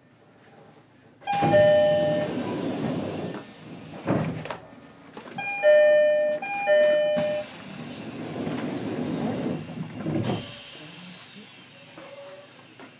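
Passenger doors of a JR East E129-series electric train sliding, with the two-note door chime, twice: once about a second in and again around six seconds in. Each movement ends in a thud.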